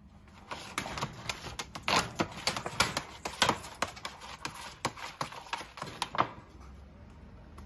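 Rapid, irregular clicking and light rattling from a cat moving about in a wire cage, starting about half a second in and dying away about six seconds in.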